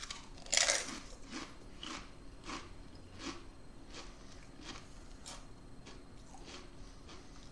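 A person biting into a Pringles potato crisp with one loud crunch about half a second in, then chewing it with a string of fainter, crisp crunches.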